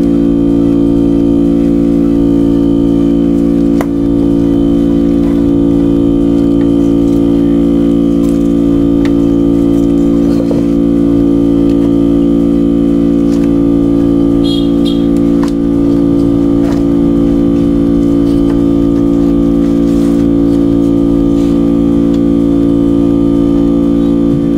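Loud, steady electrical hum built on the 50 Hz mains frequency, from the LCD separator machine running, with a few faint clicks of glass and tools being handled.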